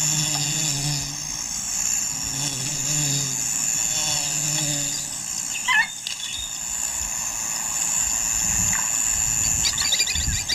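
Wild African bush ambience with a steady insect drone. A low rumble runs through the first five seconds, a short bird call comes about six seconds in, and quick chattering calls come near the end.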